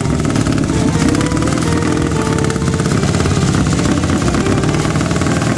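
Vintage sidecar motorcycle's engine running steadily with a fast, even beat, with music playing along with it.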